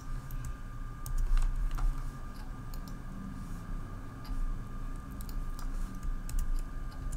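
Computer keyboard keystrokes and clicks, a scattering of irregular taps, over a faint steady high hum.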